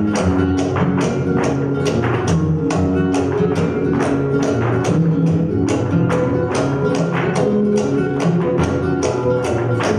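Flamenco music in the alegrías style, sharp percussive strikes keeping a steady rhythm over sustained instrumental notes.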